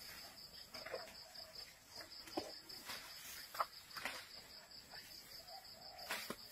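Insects trilling in the jungle, a steady, rapidly pulsing high buzz, with scattered short rustles and snaps close by, the sharpest a little past the middle.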